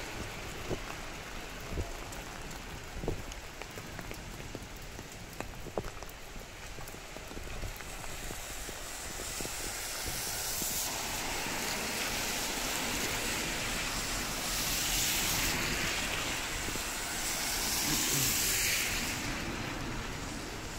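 Rain falling, a steady hiss with a few sharp drip taps in the first few seconds. In the second half the hiss swells louder three times.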